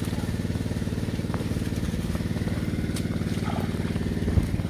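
A small engine runs steadily at a fast, even beat, plausibly driving the pump that drains the pond. A brief knock comes near the end.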